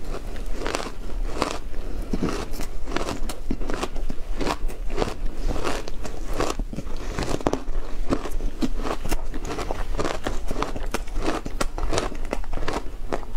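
Close-miked biting and chewing of frozen shaved ice: a quick, uneven run of crisp crunches, several a second.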